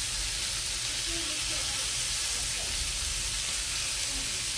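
Chicken tenders frying in oil in a skillet: a steady sizzle.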